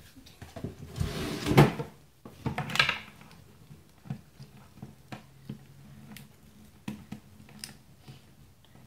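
Plastic fashion doll and toy horse handled on a tabletop: rustling, knocks and small clicks. The loudest burst comes about a second in, with another near three seconds, then lighter taps.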